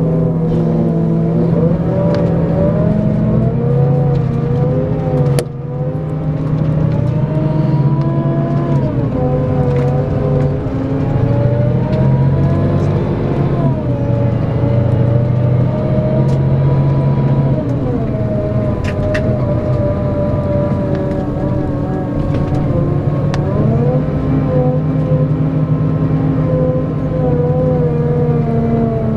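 Scania K410EB6 coach's diesel engine pulling under load: its note climbs steadily through each gear, then drops sharply at each gear change, about five times.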